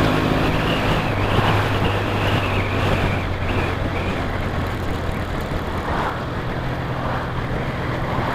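Motorcycle engines running steadily at cruising speed, a low hum under heavy wind rush over a helmet-mounted microphone.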